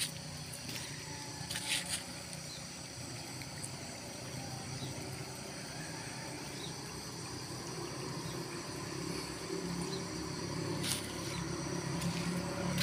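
Outdoor ambience: a steady high insect drone, with a low motor hum that grows louder over the last few seconds.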